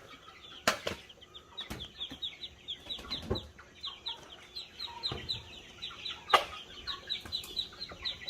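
Young fowl peeping: a rapid run of short, high, falling peeps, about three or four a second, with a few sharp knocks among them.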